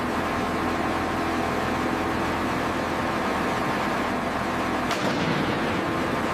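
Steady machinery noise: a constant low hum and several held tones over a hiss, with a faint click about five seconds in.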